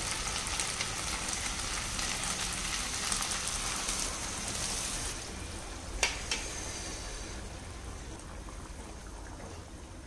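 Hot water poured onto rice and prawns frying in a hot pan, which sizzles and hisses. The sizzle drops off about five seconds in, two sharp clinks follow a moment later, then a fainter sizzle carries on.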